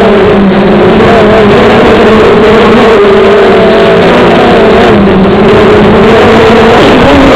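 Motors and propellers of an FPV model aircraft heard through its onboard camera microphone: a loud, steady buzz whose pitch wavers slightly as the throttle shifts in flight.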